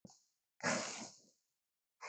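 Carnotaurus creature sound effect: a short, breathy exhale of about two-thirds of a second, starting just over half a second in, ahead of a roar.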